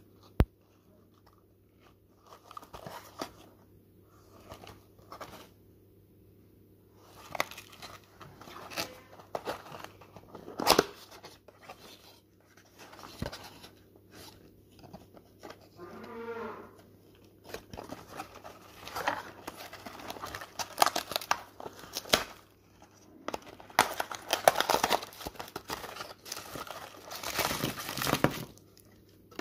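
Cardboard box being handled and opened by hand: rustling and sliding of the sleeve and inner box, with scattered taps and a sharp click about half a second in. Near the end, louder crinkling as the twist-wrapped Lindt Lindor truffles tumble out onto the table.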